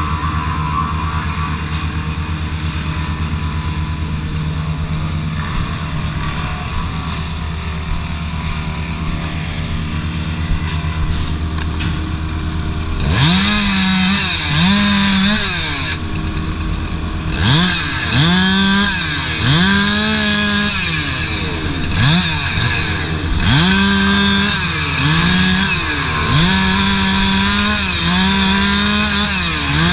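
A steady low engine drone for the first half; then, about halfway in, a two-stroke chainsaw revs to full speed again and again, each burst held for about a second and dropping back, about a dozen times.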